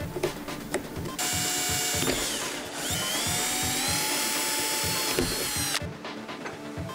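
Cordless drill boring a hole through a plastic HT drain pipe. The motor's whine starts about a second in, dips briefly, rises again, and stops shortly before the end.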